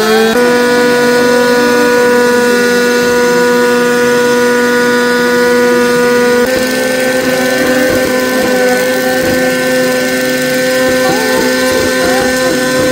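Motorcycle engine held at high, steady revs during a tyre-smoking burnout. Its pitch shifts slightly about halfway through.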